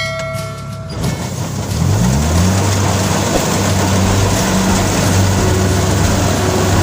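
Rice combine harvester's engine revving up, its pitch rising about two seconds in, then running steadily under a loud, dense machinery clatter.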